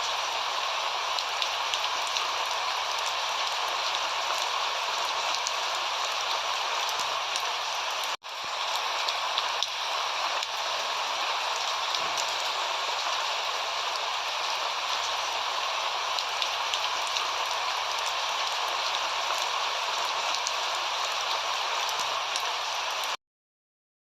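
Steady rain falling, an even hiss with scattered drop ticks. It drops out for an instant about a third of the way in and stops abruptly near the end.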